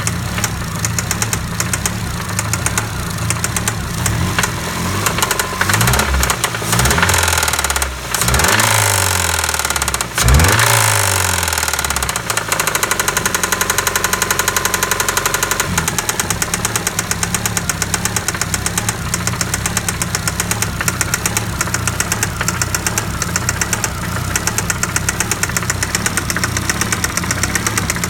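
Ford Fiesta 1.25 four-cylinder petrol engine idling with a fast, even rattling tick, blipped up and down a few times about a third of the way in before settling back to idle. The rattle is the fault the owner is showing; its cause is not given.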